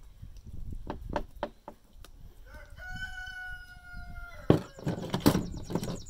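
A rooster crows once, one held call of nearly two seconds in the middle. Near the end come several sharp knocks and clatter from handling on the table.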